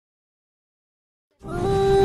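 Silence, then background music fades in about a second and a half in: a steady held note with a low rumble beneath it.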